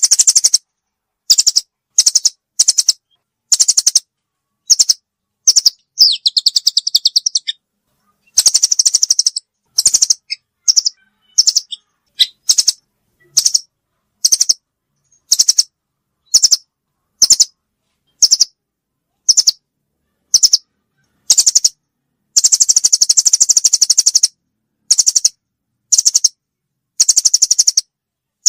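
Bird-lure recording of a songbird giving short, high, rapidly trilled chirps about once a second, with a few longer trills, and dead silence between the calls.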